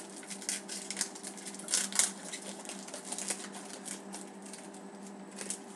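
Foil trading-card pack wrapper crinkling and tearing as it is opened by hand: a dense run of crackles, loudest about two seconds in.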